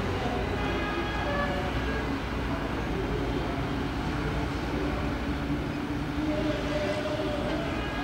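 Steady drone of an engine, its pitch wavering slightly, over a low rumble.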